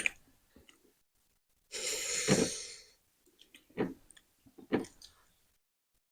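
A person's wheezy breath through the mouth, about a second long, followed by two short, quieter sounds.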